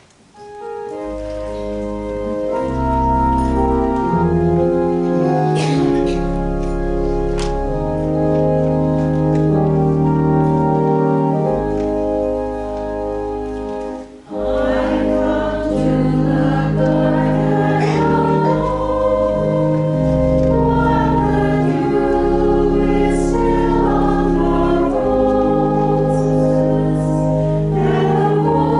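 Organ playing the held chords of a hymn introduction. After a brief break about halfway through, voices join in singing the hymn with the organ.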